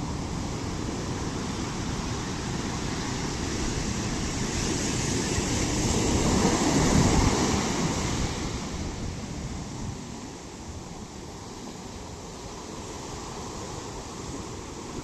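Sea waves breaking on the shore: a steady wash of surf that swells into one larger wave crashing about seven seconds in, then recedes to a lower hiss.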